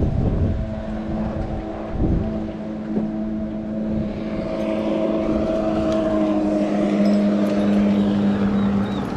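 A boat motor running with a steady hum, swelling slightly about halfway through. Wind buffets the microphone at the start.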